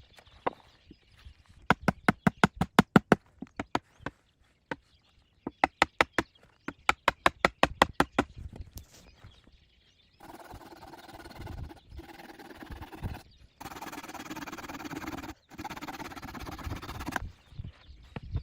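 Two runs of rapid, even knocks, about eight a second, then several seconds of rough scraping or rasping broken by short pauses.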